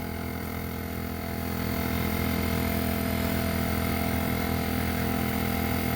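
A steady mechanical drone with a low, even hum and several fixed tones, unchanging throughout, from a motor or engine running; no nail-gun shots are heard.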